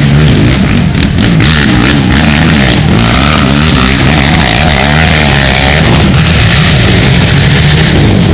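Racing ATV engines revving, loud, their pitch rising and falling again and again as the riders work the throttle.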